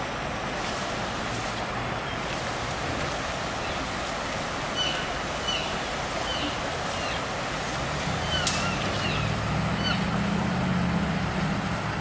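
Steady rush of a fast mountain river. A few short high chirps sound in the middle, and a low hum of a passing vehicle builds in the last few seconds.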